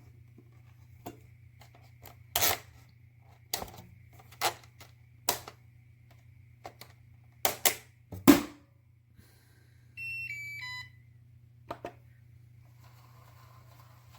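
A series of sharp knocks and clicks over a steady low hum, then about ten seconds in a short electronic beep melody of a few stepped tones, followed by a couple more clicks.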